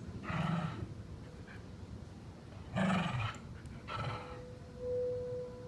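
Three short, loud animal calls, then the steady tone of a tornado warning siren coming in about four seconds in and swelling near the end.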